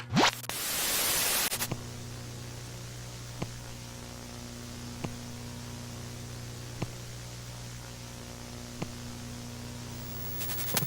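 Steady electrical hum with a faint static hiss, after a short loud burst of hiss about half a second in. A few single faint ticks sound a second or two apart, and a quick run of clicks comes just before the end.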